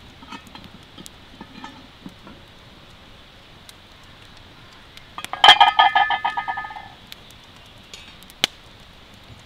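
Metal cookware handled over the fire: a few light clicks, then about five seconds in a sharp metallic clatter that rings and jangles for over a second before dying away.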